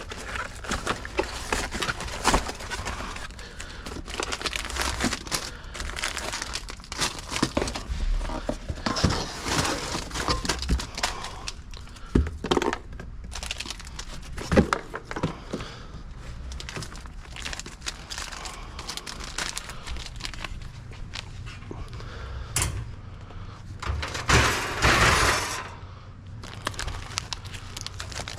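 Plastic food packaging crinkling and rustling as wrapped snacks are handled and sorted, with scattered short knocks of items being set down. Near the end comes a louder stretch of crinkling lasting about two seconds.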